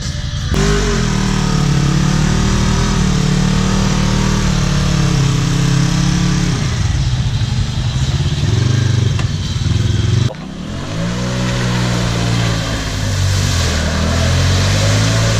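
Off-road ATV or side-by-side engine revving hard, its pitch rising and falling over and over as the driver tries to rock the high-centered machine free of the mud. The revs drop off suddenly about ten seconds in, then climb again.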